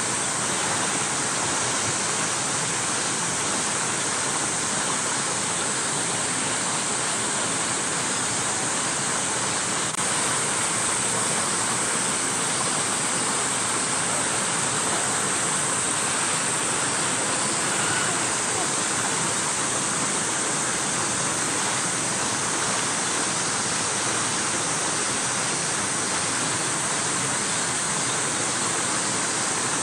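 A steady, unbroken rushing hiss with no distinct events.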